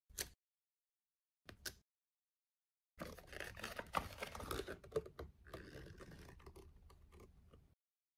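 Paper rustling and crackling as a folded quick-start leaflet is opened out, starting about three seconds in and dying away near the end. Before that, only two brief faint handling sounds.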